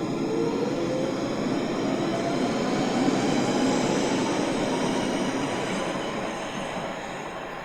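London Underground 1992 stock Central line train pulling away, its traction motors giving a rising whine over wheel and rail noise. It grows louder to about midway, then fades as it draws off.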